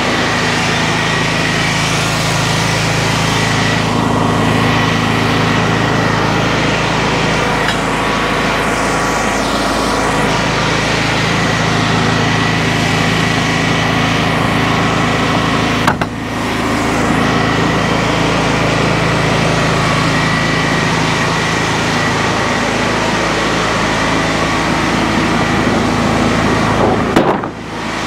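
Portable board edger running steadily, its engine and spinning saw blades making a loud, even drone with a thin whine on top. A single sharp click comes about two-thirds of the way through.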